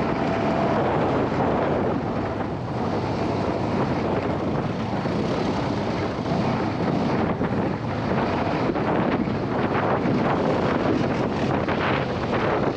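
A motor vehicle running steadily, with heavy wind buffeting the microphone.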